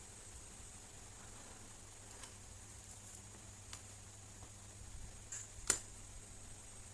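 A few small, sharp clicks over a faint steady hiss and hum, the loudest near the end.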